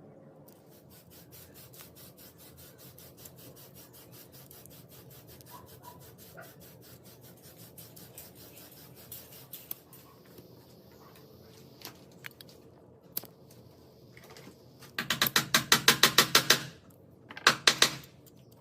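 Faint rubbing and fine ticking, then a loud burst of rapid clicking about fifteen seconds in that lasts nearly two seconds, and a shorter burst of the same clicking near the end.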